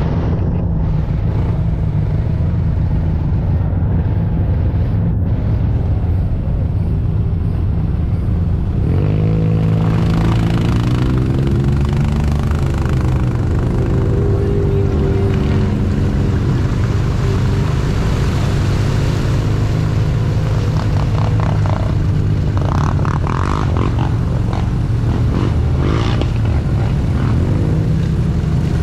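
Side-by-side UTV engine running steadily as it drives through shallow floodwater on a sandy trail. It revs up about nine seconds in and again at the end. A hiss of water and tyres runs beneath the engine.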